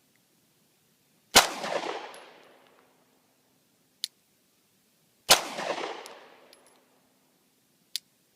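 9mm Glock 19 pistol firing two shots about four seconds apart, each shot followed by a long echo dying away over about a second and a half. Two fainter, short sharp cracks come in between and near the end.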